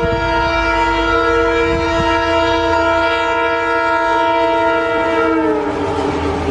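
Indian Railways diesel locomotive's horn sounding one long steady blast as the train approaches at speed. Its pitch drops as the locomotive passes, near the end, and the rush and rattle of the passing coaches takes over.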